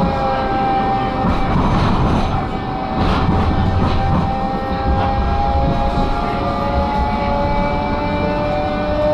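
Electric tram running along the track. Its traction motors give a steady whine of several tones that sag a little and climb again, over the low rumble of wheels on the rails.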